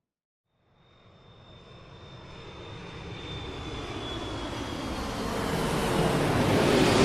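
An airplane flying over: its engine noise fades in and grows steadily louder as it approaches, peaking near the end as it passes overhead. A high whine and a lower tone drop slowly in pitch as it goes by.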